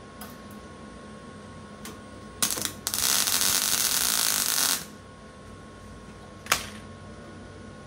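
Vulcan OmniPro 220 MIG welder arc on 18-gauge car body steel, filling a hole: a brief blip of the arc, then about two seconds of steady arc noise that stops abruptly. A single sharp click follows a couple of seconds later.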